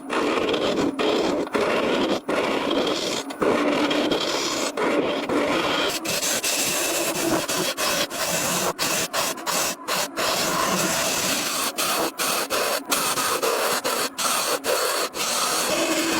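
Abrasive scraping on a wooden block, a continuous rough rubbing noise broken by many brief dropouts.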